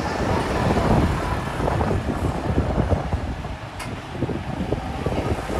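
Street ambience: wind buffeting the microphone over a low rumble of road traffic, easing a little about four seconds in.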